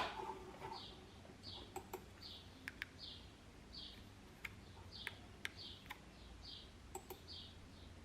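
Faint, high, bird-like chirps, each short and falling, repeating about once every 0.7 seconds. Scattered sharp clicks of a computer mouse and keyboard, with one louder click right at the start.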